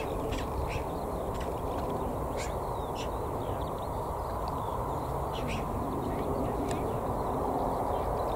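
Four Rolls-Royce RB211-524D engines of a Boeing 747-200 freighter running steadily at low power as it taxis along the runway, a distant even rumble. Short bird calls come over it again and again.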